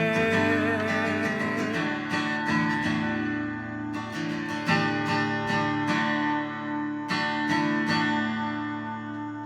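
Acoustic guitar playing the song's closing chords: a few strums left to ring over sustained notes, slowly dying away near the end.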